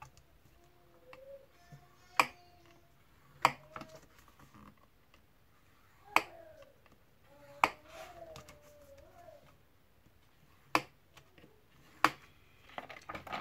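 Sharp clicks of a scoring stylus on a plastic scoring board as card stock is scored between the cards, six clicks in all, irregularly spaced one to three seconds apart.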